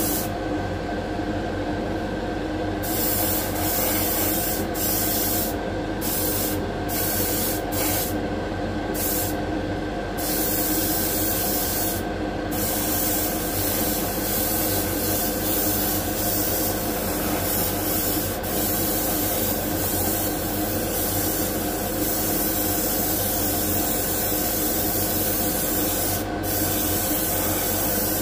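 Gravity-feed airbrush spraying paint: a hiss of air and paint that stops and starts as the trigger is let off, with short breaks in the first ten seconds, about twelve seconds in and near the end. A steady motor hum runs underneath throughout.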